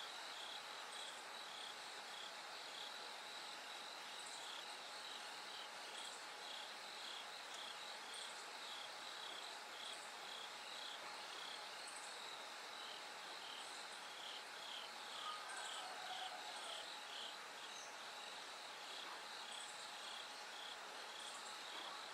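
Bell crickets and other autumn insects singing in a faint chorus: a steady high ringing trill with rapid repeated chirps, about two or three a second, and a thinner, higher chirp every couple of seconds. A brief faint call sounds about fifteen seconds in.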